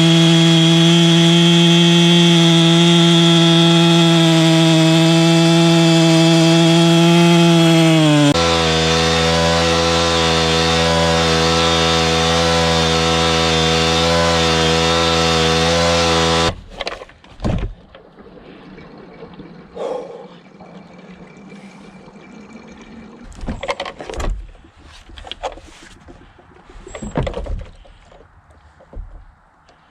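Two-stroke chainsaw running at full throttle, cutting through an ash stump. About eight seconds in, the throttle is released and the engine drops to a low idle. About halfway through, it shuts off abruptly, leaving scattered knocks and rustles.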